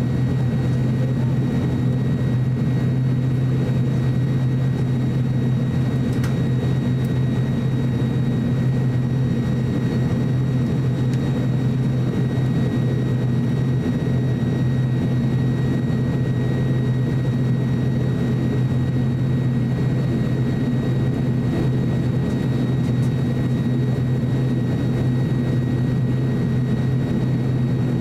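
ATR 42-600's Pratt & Whitney Canada PW127 turboprop engine and propeller running steadily on the ground before takeoff, heard inside the cabin: a steady deep drone with a thin high whine over it.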